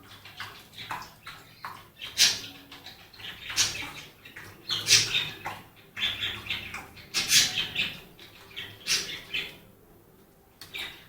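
Siberian husky puppies squeaking and whimpering in short, irregular high-pitched cries, mixed with scuffling, with a lull near the end.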